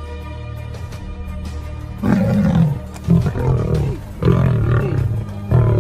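Lions growling and roaring in loud, repeated bursts about once a second over background music. The first two seconds are music alone.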